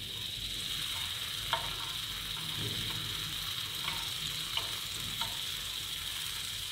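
Marinated mutton pieces sizzling on a hot grill pan, a steady hiss, with a few light clicks as the pieces are turned over with tongs and a spatula.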